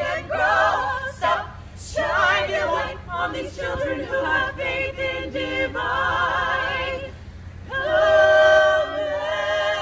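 Mixed choir of men and women singing in harmony with vibrato. After a brief drop around seven seconds, the voices swell into a loud held chord near the end.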